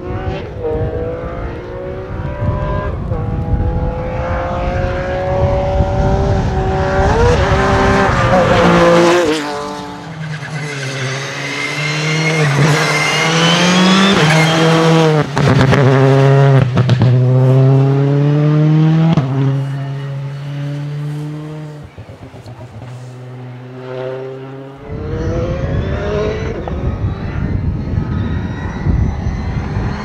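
Rally cars driving flat out on a tarmac stage, engines revving hard up through the gears with quick drops at each gear change and lifts for corners. The loudest stretch, in the middle, is a Citroën C3 Rally2 car's turbocharged 1.6-litre four-cylinder passing close, with a more distant car revving near the end over a low rumble.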